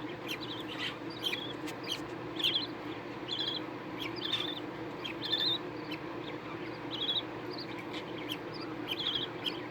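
Small pet birds chirping: short, rapidly trilled high chirps, about one a second, over a steady low hum.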